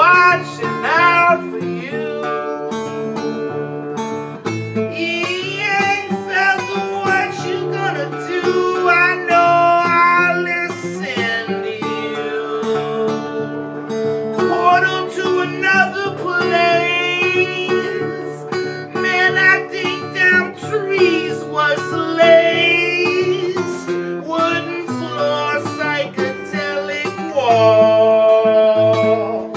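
A man singing a song while accompanying himself on an acoustic guitar, the guitar holding steady chords under his voice.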